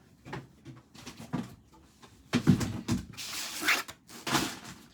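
A person huffing and breathing hard in a series of short, irregular breaths and strained sounds, reacting to the burn of a superhot scorpion pepper.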